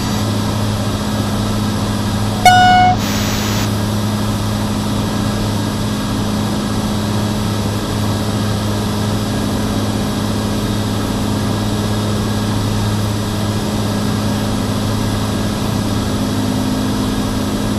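Cirrus SR22's six-cylinder piston engine and propeller giving a steady cruise drone in the cockpit, as heard over the headset audio. About two and a half seconds in, a short beep is followed by about a second of hiss.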